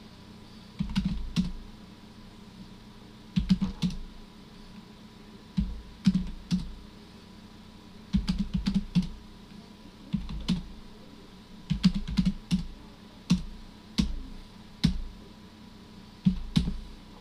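Computer keyboard being typed on in short bursts of a few keystrokes, with pauses of about a second between bursts.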